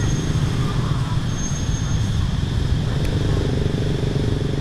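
Steady low rumble of road traffic, with a faint hum joining about three seconds in and a thin high tone that comes and goes.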